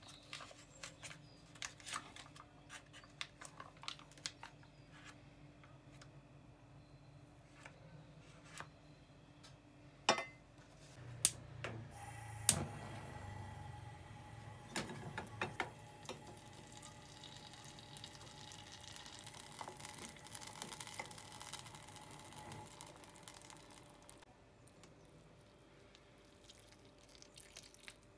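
Metal spoon scooping butter and clicking against an enamel milk pan in a run of small taps, then a few sharp knocks as the pan goes onto the gas hob, followed by a faint steady hiss.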